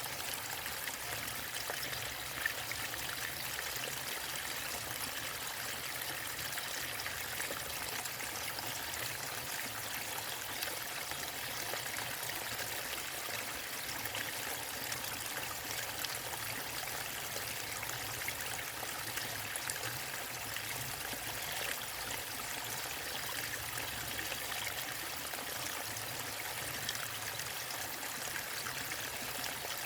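Small waterfall and stream: water falling and running over rocks in a steady rushing hiss, with small splashes and trickles flickering through it.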